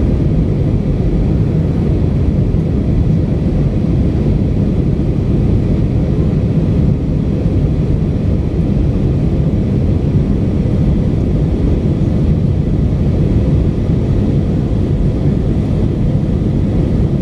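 Steady low rumble inside the cabin of an Airbus A319 in flight, from a window seat over the wing: engine and airflow noise.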